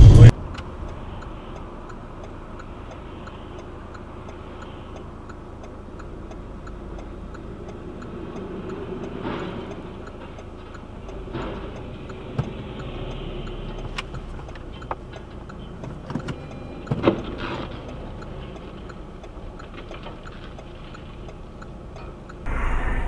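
Dashcam audio from inside a car: a steady low hum with a faint regular ticking, broken by a few knocks and thuds, the loudest a short cluster about 17 seconds in, as a semi-trailer truck crashes on the road ahead. Background music cuts off right at the start.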